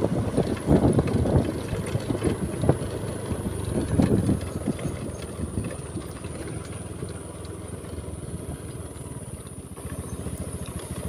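Motorcycle engine running steadily while riding along a rough road, uneven and louder over the first few seconds, then settling.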